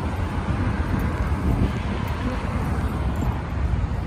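Road traffic: cars driving through an intersection, a steady low rumble of engines and tyres, with wind buffeting the microphone.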